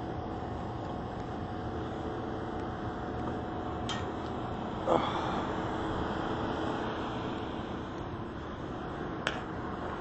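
Rooftop HVAC equipment running: a steady mechanical hum with a few steady tones from fans and motors. Over it come a few sharp knocks or clicks, the loudest about halfway through.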